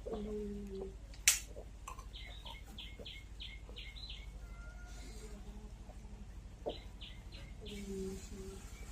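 Close-up mouth eating sounds: rhythmic chewing and lip-smacking in short runs, with one sharp click about a second in and a brief low hum at the start and near the end.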